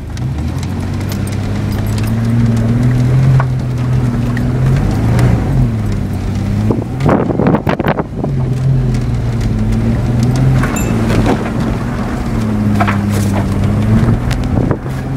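Holden VN Commodore engine running hard at high, held revs, its pitch dipping and climbing again several times as the car is thrown around the dirt. About seven seconds in, a short burst of noise breaks over it.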